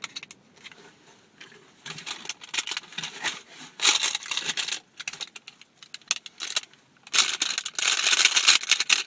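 Packaging crinkling and rustling as it is handled and unwrapped, in two longer spells with a few small clicks between.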